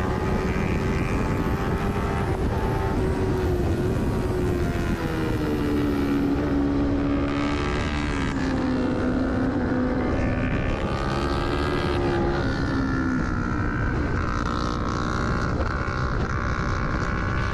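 Kawasaki Ninja 300's parallel-twin engine heard onboard at race pace: its note holds, drops between about four and nine seconds in as the bike slows for a corner, rises again, dips, and climbs near the end as it accelerates out.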